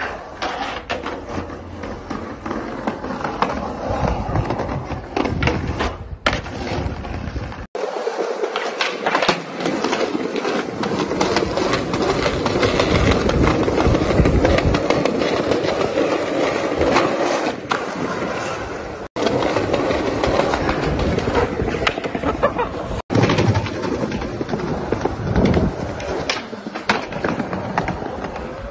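Skateboard wheels rolling over concrete and paving slabs, with the clacks of boards popping and landing tricks. The sound changes abruptly several times as one clip cuts to the next.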